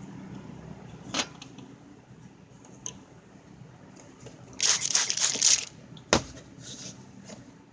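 Handling noise: a sharp click, then a crackling rustle lasting about a second just past halfway, followed by another sharp click.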